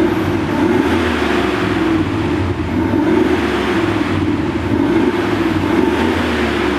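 Active-sound exhaust speaker (Thor) playing a synthetic Mercedes-AMG G63 V8 engine sound at full volume, a loud continuous rumble that swells and eases several times like an engine being revved, measured at about 90 decibels.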